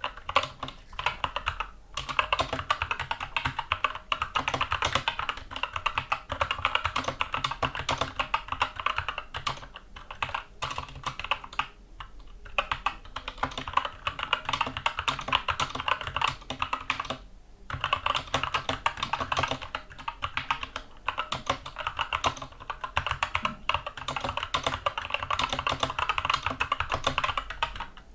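Continuous typing on a Skyloong SK64 mechanical keyboard with Gateron Brown tactile switches: a dense, fast stream of key clacks, broken by a couple of brief pauses.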